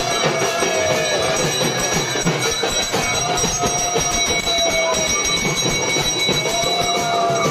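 Brass hand bell rung continuously, over a dense din, with three long, slightly wavering notes blown on a conch shell.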